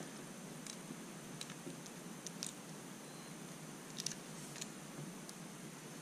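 Faint, scattered clicks and small creaks of pliers gripping and squeezing the metal shell of a USB-A plug, trying to crack it open; a few isolated clicks with a quick pair about four seconds in.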